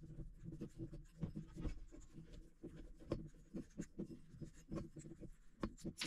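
Faint handling noise: a metal headlight switch cover being worked along a bundle of harness wires by hand, with irregular light clicks and rubbing of the wires against the metal.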